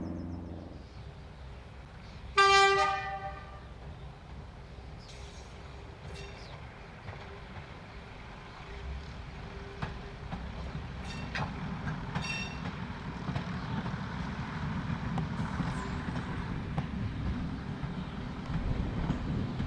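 A steam locomotive's whistle gives one short toot a couple of seconds in, the loudest sound. A few light clanks follow, and a low rumble from the train grows louder through the second half.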